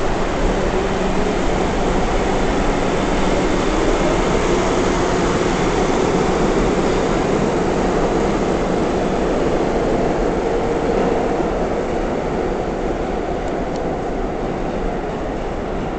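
R62A subway train pulling out of the station, a steady loud rush of train noise that slowly fades over the last few seconds as it moves away.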